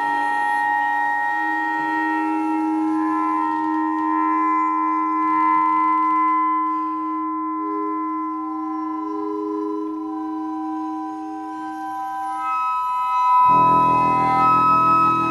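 Contemporary chamber music: long held instrumental notes layered over one another, shifting slowly in pitch, with a fuller, deeper chord coming in near the end.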